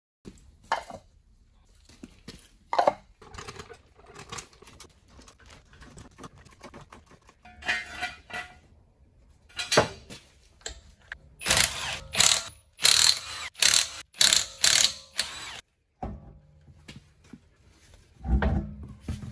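Metallic clicks, clanks and ratcheting from a car being raised on a trolley jack and a rear wheel being taken off. A run of loud rattling bursts comes about two-thirds of the way through, and a heavy thud near the end.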